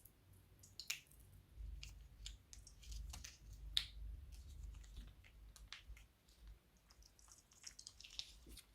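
Crunchy slime made with piping-bag plastic being squeezed and poked, giving faint, irregular crackles and clicks. One sharper pop comes a little under four seconds in.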